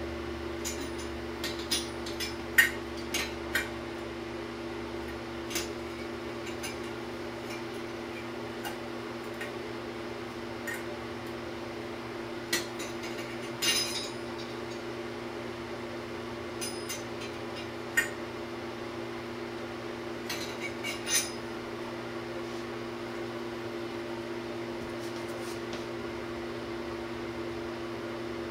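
Scattered clinks and knocks of hands and metal fittings or tools against a ceramic pedestal sink during plumbing work. The sharpest comes a couple of seconds in, and there are small clusters midway and later, over a steady low hum.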